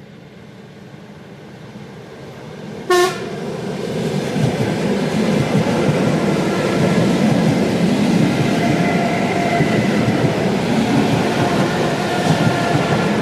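ET2M electric multiple unit approaching and running past, its noise building steadily, with one very short horn blast about three seconds in. After the blast the loud rumble and clatter of the wheels continues with a faint steady whine from the traction equipment.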